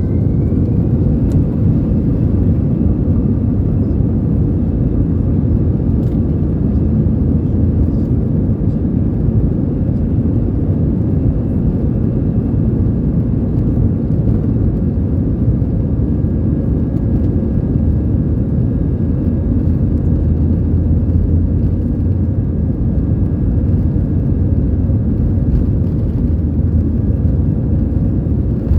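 Airbus A320's CFM56 turbofan engines at takeoff thrust, heard from inside the cabin: a loud steady rumble with a faint high whine.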